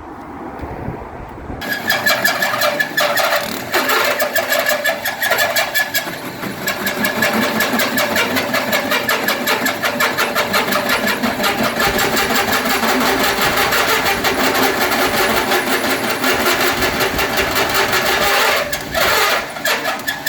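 Electric power tool running under load, cutting with a fast rattling chatter. It starts about two seconds in, runs for close to twenty seconds, and stops suddenly at the end.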